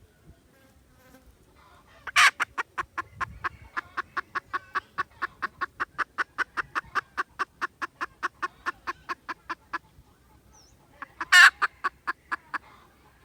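Junglefowl giving a long, fast run of clucks, about five a second, opening with a loud note and lasting some eight seconds, then another loud call near the end followed by a few more clucks.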